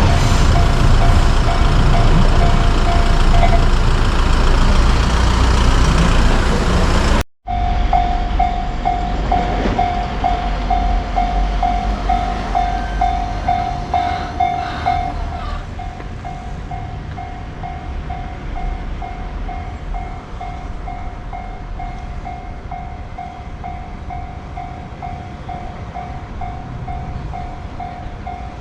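A freight train rumbles loudly past over a level crossing while the crossing's electronic warning bell rings, the bell stopping partway through. After a sudden cut, a Japanese level crossing's electronic bell rings steadily at about two strikes a second over a quieter, fading rumble of rail traffic.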